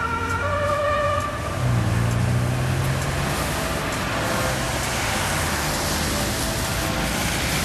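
Ambulance two-tone siren alternating between two pitches, cutting off about a second in. It gives way to a low vehicle engine hum and a steady rush of city traffic noise.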